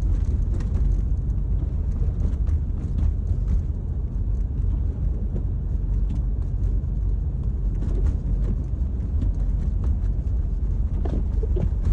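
Steady low rumble of a car driving, heard from inside the cabin: engine and tyre noise on a snow-covered road, with faint scattered ticks.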